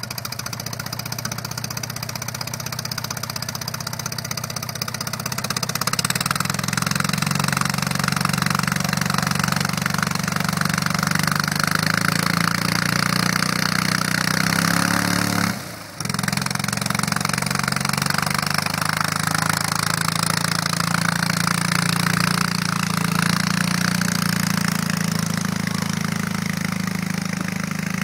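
Piston engine of a vintage light aircraft running with its propeller, picking up about six seconds in. Just before halfway the pitch sags and the sound drops out briefly, then it runs steadily again.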